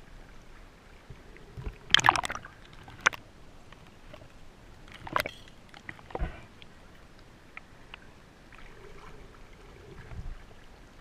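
Water splashing and sloshing close to the microphone, with a few sharp splashes, the loudest about two seconds in.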